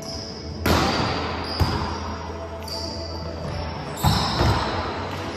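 Volleyball being struck by hands during a rally: several sharp slaps of palm on ball, each ringing out in the gymnasium's echo.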